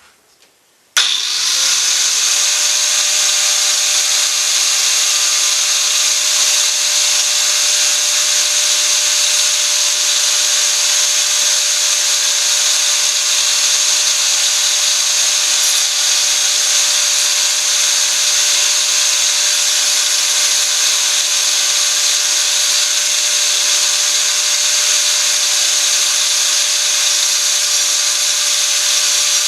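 Angle grinder fitted with a toothed saw blade, switched on abruptly about a second in and running with a steady high-pitched whine.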